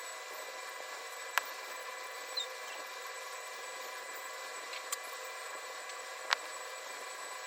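Steady high-pitched whine and hiss of a small electric motor running, with three sharp clicks.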